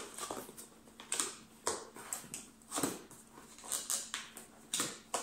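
Cardboard monitor box being cut and torn open by hand: a string of short, irregular scrapes and rips of cardboard and packing tape.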